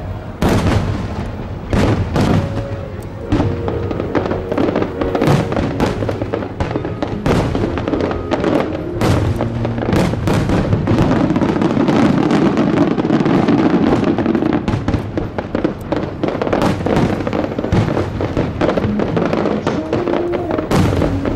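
Fireworks display: dense, repeated bangs and crackling bursts, several a second, with music playing alongside.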